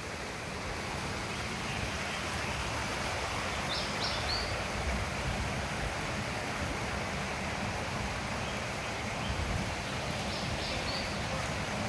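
Creek water rushing over rocks in a steady, even rush. A bird chirps briefly about four seconds in and again near the end.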